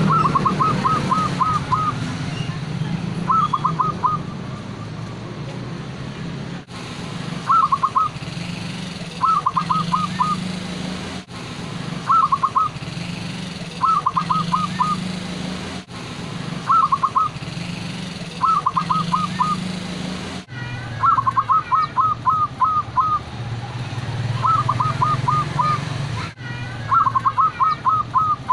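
Zebra dove (perkutut) cooing in the local song style called "klooww ketek gayer": repeated phrases of quick, rippling notes, each a run of about four to eight short notes, coming every one and a half to two seconds over a steady low hum.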